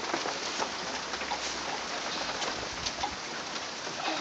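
Small hail falling steadily, a dense hiss of ice pellets with scattered light ticks as they strike.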